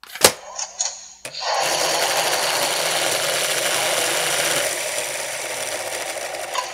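A sharp click, then the CSM Typhoon transformation belt's motorised red turbine fan spinning in its Prana Forced Ejection function: a steady whirring hiss for about five seconds that eases off slightly toward the end.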